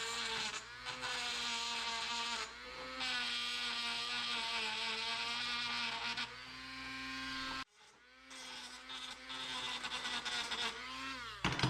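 Worn-out Dremel rotary tool running at high speed with a steady whine and a gritty hiss as it grinds metal. It cuts out abruptly, spins back up with a rising whine, then winds down near the end. The owner says the tool is shot.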